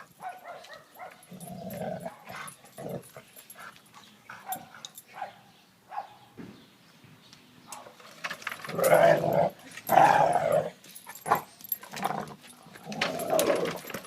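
A dog barking and growling in irregular bursts, loudest about nine and ten seconds in and again near the end.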